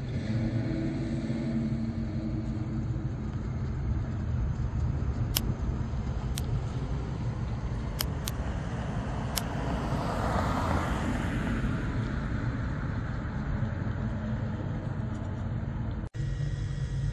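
1956 Chevrolet two-door sedan driving slowly past, its engine running with a steady low rumble that swells as the car goes by, then eases as it pulls away.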